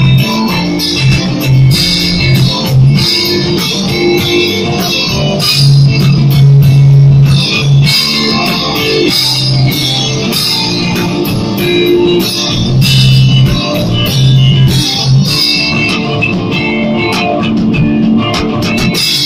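A small band playing an instrumental tune live: electric guitar and electric bass over drums, with a steady beat.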